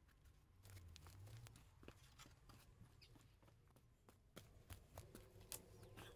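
Near silence with faint, scattered clicks and knocks from a wooden garden chair and a plant pot being carried and set about, with footsteps on steps.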